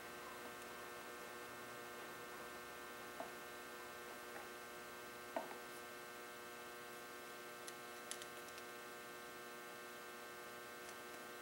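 Steady electrical mains hum with a few faint, sharp clicks of a screwdriver working against small metal engine parts, the loudest about five seconds in.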